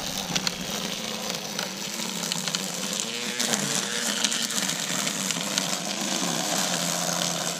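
String trimmer running steadily as its line cuts through tall grass and weeds, with a wavering motor hum and scattered light ticks.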